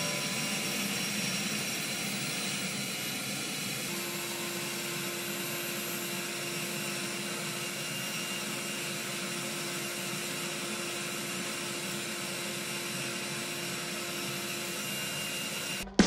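Miniature 3D-printed Henry-style vacuum cleaner running steadily, its small motor and fan giving a whooshing rush of suction air as the hose nozzle sucks crumbs off a keyboard. A faint steady hum joins the whoosh about four seconds in, and the sound cuts off abruptly at the very end.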